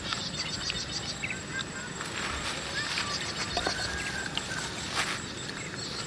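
Cooking oil sizzling gently in a frying pan on a portable gas stove as battered bamboo shoots fry, with light, irregular crackles. A few short chirps sound in the background.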